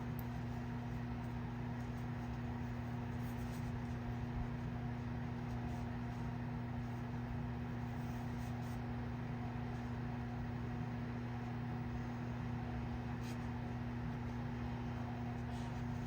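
Steady electrical hum with a low fan-like whirr from running bench equipment, unchanging throughout, with a few faint ticks.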